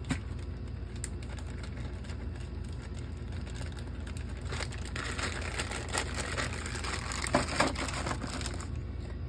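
A plastic bag of wooden game pieces crinkling and rustling as it is handled and pressed into a plastic box insert, with a few light clicks and knocks. A steady low hum runs underneath.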